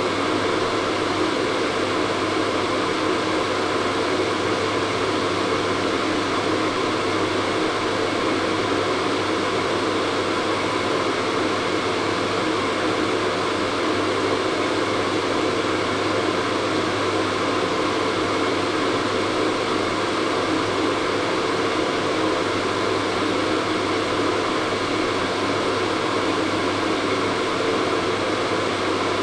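Hair dryer running continuously: a steady rush of blown air over a constant low motor hum, with no change in speed.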